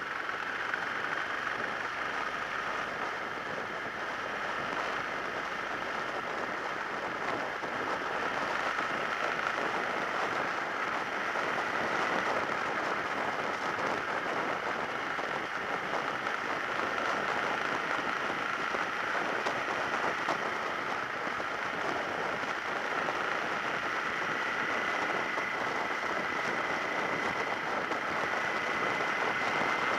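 Steady wind and road noise rushing over a motorcycle-mounted action camera as a Suzuki SV650S's V-twin cruises, with a faint engine whine that rises slightly near the end.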